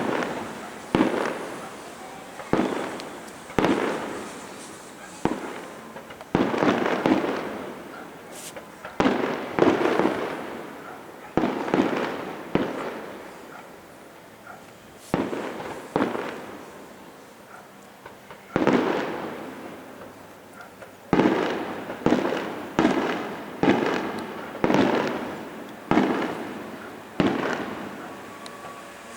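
Fireworks bursting in the sky one after another, about one bang a second, each sharp report trailing off over a second or so. There is a short lull near the middle and a quicker run of bangs toward the end.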